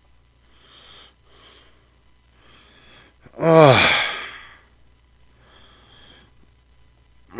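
A man's deep, voiced sigh that falls in pitch, about three and a half seconds in, with faint soft sounds before and after it.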